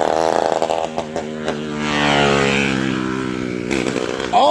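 KTM 65 dirt bike's small two-stroke single-cylinder engine running, its revs rising about two seconds in and then slowly falling off.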